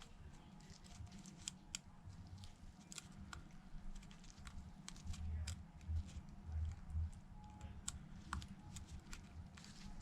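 Small, scattered clicks and taps of precision tools and parts being handled while a replacement screen's flex cables are pressed onto an iPhone 11's connectors, with a few dull low thumps about five to seven seconds in.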